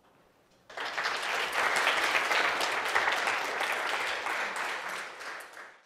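Audience applauding, starting suddenly just under a second in and fading out near the end.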